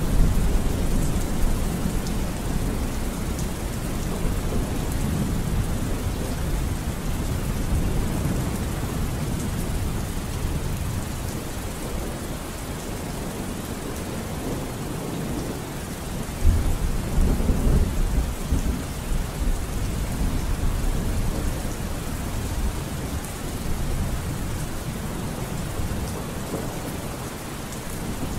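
Steady low rumbling noise with a faint hiss over it, swelling louder a little past halfway.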